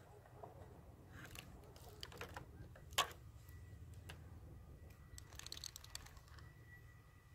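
Faint, scattered clicks and taps from handling fishing tackle. The sharpest comes about three seconds in, and a quick run of clicking follows near six seconds as the line is worked.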